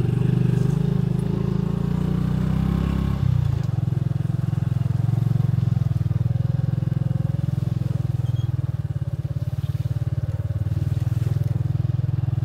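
Small motorcycle engine running steadily while riding, with a fast even pulsing drone. About three and a half seconds in the engine note changes and its deepest part drops away.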